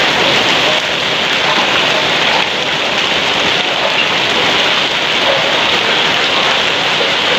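Heavy rain pouring steadily onto muddy ground and puddles, a dense, even hiss of falling water.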